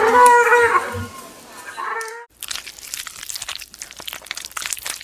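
An animal calling with a wavering, pitched cry for about two seconds, then a sudden change to a rapid, irregular crunching and crackling.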